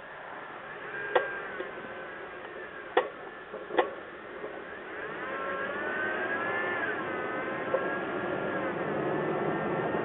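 Three sharp pops from a lifted 2nd-gen Toyota Tacoma's front suspension (Old Man Emu lift coils, Total Chaos upper control arms), one about a second in and two close together around three to four seconds in, of unknown cause. Under them the truck's engine runs, its pitch rising and falling from about halfway on.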